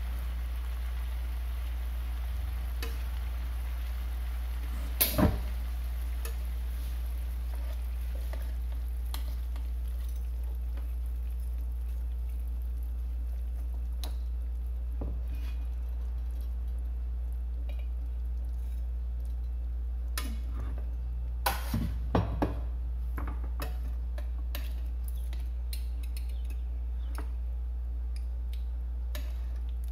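Metal tongs knocking and scraping against a nonstick frying pan while pieces of braised filefish are turned in sauce: a couple of sharp clinks about five seconds in and a quick cluster of them near two-thirds of the way through. Underneath runs a steady low hum.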